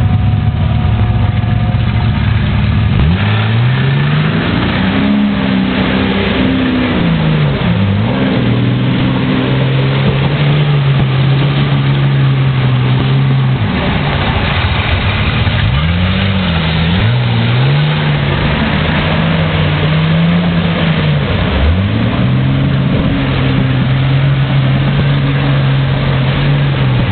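4x4 SUV engine under load as it pushes through a muddy stream bed. The revs climb sharply, hold for several seconds, then fall back, over and over.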